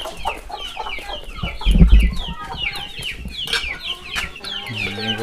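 Domestic chickens calling: a fast, continuous run of short, high, falling peeps. A heavy low thump about two seconds in, and a man's voice starting near the end.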